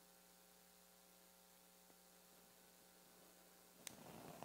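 Near silence with a steady low electrical hum. A faint click and a brief soft rustle come near the end.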